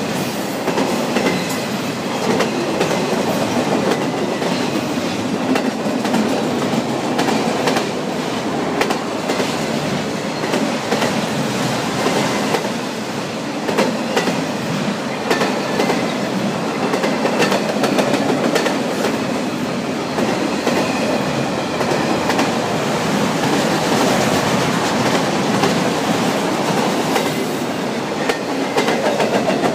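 Autorack cars of a CSX freight train rolling past close by: a steady rumble of steel wheels on rail, with clicking as the wheels cross rail joints and a faint wheel squeal.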